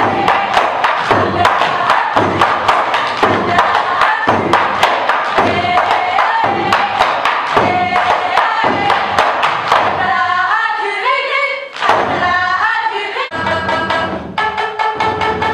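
Live taiko-style percussion performance: heavy strikes in a fast steady beat, about two or three a second, with a sung melody over them. About thirteen seconds in it cuts to a different piece with held instrumental notes.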